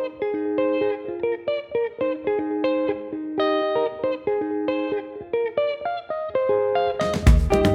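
Background music: a picked guitar plays a melody of single notes, and near the end drums and bass come in under it.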